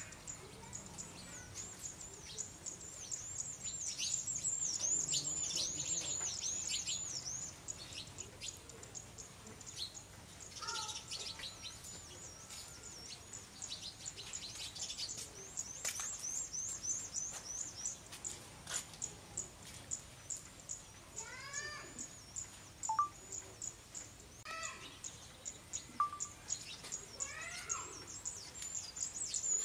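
Small birds chirping in quick runs of high repeated notes, with series of lower rising calls in the second half, over the steady soft hiss of light rain.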